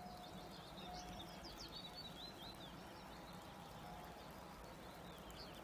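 Faint birdsong: quick twittering phrases, busiest in the first half and again near the end, over a low steady rumble. A short steady note repeats about once a second behind it.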